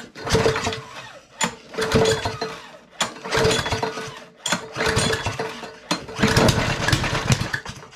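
Small lawnmower engine firing in about five short bursts, each catching sharply and dying away within about a second, as it tries to start after a carburetor clean and rebuild.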